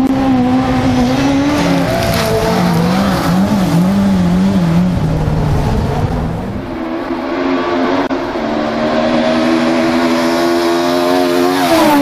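Rally-prepared Ford Escort Mk2s at full throttle on a gravel stage, one after the other. The first car's engine pitch wavers up and down in the first half, and the second car's engine climbs steadily in pitch until it drops sharply near the end.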